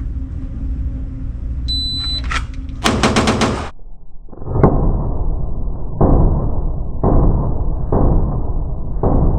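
Shot-timer beep, then a fast string of pistol shots from a compensated Glock 19C, followed by five heavier, drawn-out booms about a second apart.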